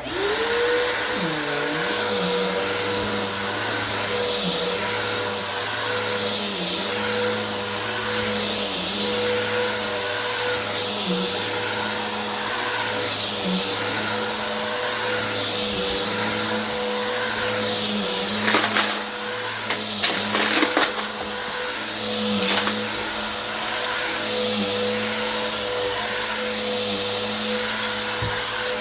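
Bissell vacuum cleaner switched on, its motor rising to a steady whine right at the start, then pushed back and forth over the floor in an even rhythm. A few sharp crackles about two-thirds through as it sucks up crunchy debris.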